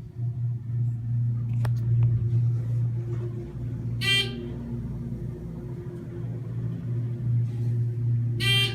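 ThyssenKrupp elevator running with a steady low hum. Two short, bright electronic tones sound about four and a half seconds apart, one near the middle and one at the end.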